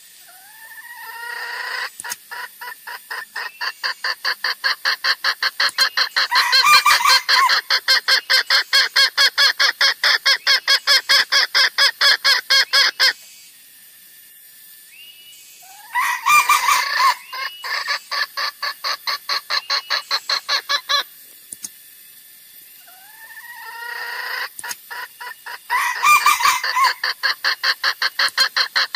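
Junglefowl calls from a lure recording. Each series opens with a rising call and breaks into a long run of short, rapidly repeated notes, about five a second. The first series lasts about eleven seconds, a shorter one comes about sixteen seconds in, and another starts about twenty-four seconds in.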